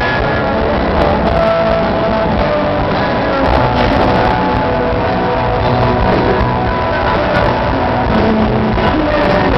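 Rock band playing live: electric guitars and a drum kit in full swing, loud and steady.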